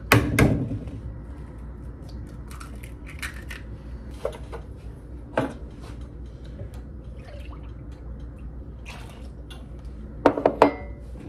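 Batter-making sounds at a glass mixing bowl: a clatter at the start, then scattered light taps as eggs are cracked into the bowl. Near the end, liquid is poured from a plastic milk jug, with a few quick knocks.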